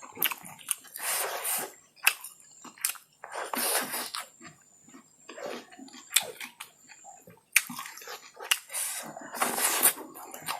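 A person chewing chow mein noodles close to the microphone, with frequent wet mouth clicks and three louder noisy rushes of about a second each.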